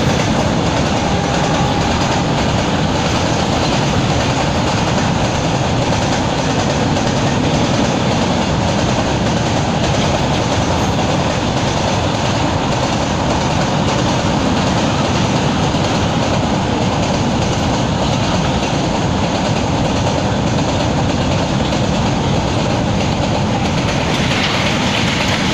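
Freight train of covered goods wagons rolling past close by: a steady loud rumble and clatter of steel wheels on the rails.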